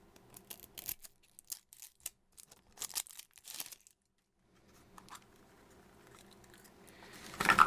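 Plastic surprise-egg capsule being pulled open and its plastic wrapping crinkled and torn: a run of short, sharp crackles and clicks over the first four seconds, then a single click about five seconds in.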